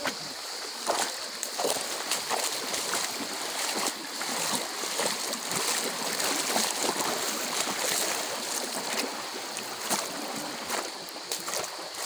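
Shallow stream running over stones, with irregular splashes of feet wading through the water.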